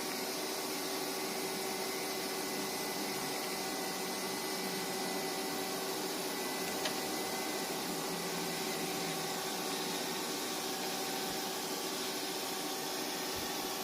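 Murata MW100 twin-spindle CNC lathe running: a steady machine hum with several constant tones over a hiss, and one sharp click about seven seconds in.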